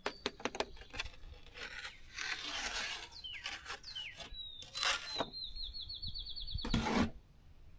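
Rubbing and scraping from hand work on the block wall, with a few clicks near the start and louder scrapes or knocks about five and seven seconds in. A songbird gives two falling chirps and then a fast, high trill behind it.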